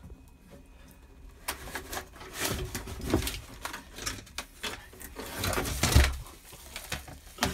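Irregular scraping, rustling and knocks as a Savannah monitor clambers over a wooden branch and enclosure substrate, with a heavy low thump about six seconds in.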